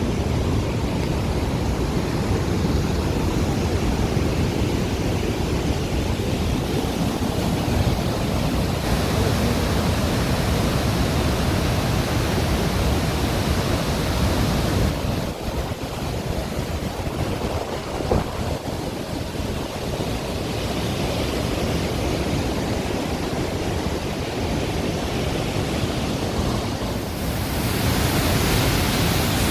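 Rhine Falls, a large waterfall, rushing as a steady, heavy wash of noise; it dips a little from about the middle and swells louder again near the end.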